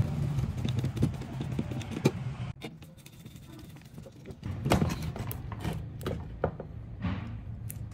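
Screwdriver clicking and scraping against screws in a computer power supply's sheet-steel case, with light metallic knocks as the case and circuit board are handled. A steady low hum runs underneath and cuts off about two and a half seconds in.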